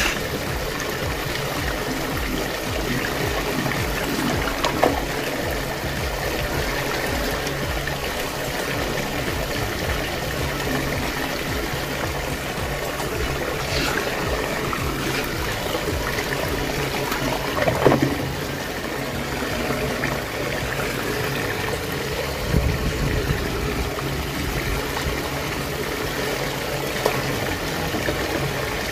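Steady rushing and gurgling of water swirling in a whirlpool vortex down a drain hole, with a couple of brief splashes as toys drop in.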